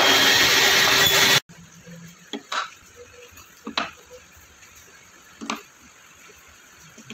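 Table saw running for about the first second and a half, then cutting off suddenly. After that, a few light knocks as small pine offcuts are handled on the cast saw table.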